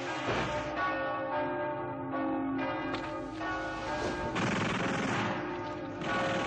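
Church bells ringing hard, struck again and again so their tones overlap and hang, with stretches of rougher noise mixed in.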